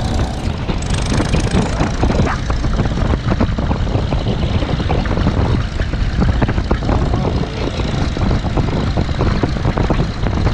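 Small vintage tractor engine running steadily as it tows a trailer, heard from the trailer, with uneven rattling and buffeting noise over it.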